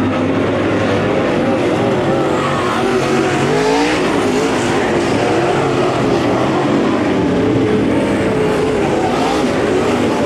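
Several dirt late model race cars' V8 engines running hard on a dirt oval. Their overlapping engine notes keep rising and falling as the cars pass and go through the turns.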